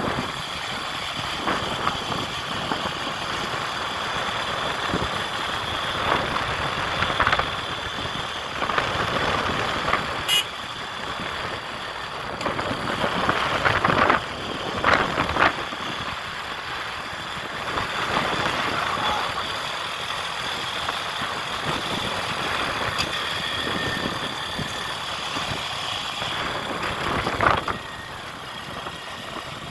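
Motor vehicle engine running steadily, with several brief louder noises over it.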